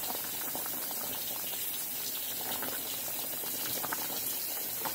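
Pot of curry chicken boiling hard on a stove: steady bubbling and popping of the thick sauce.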